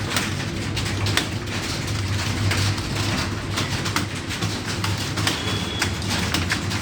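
Computer keyboards clattering as several people type at once in a timed typing test: rapid, irregular key clicks over a steady low hum.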